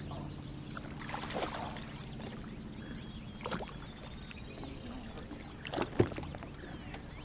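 A hooked largemouth bass thrashing and splashing at the water's surface beside the boat, in several sharp splashes, the loudest about six seconds in. A steady low hum runs underneath.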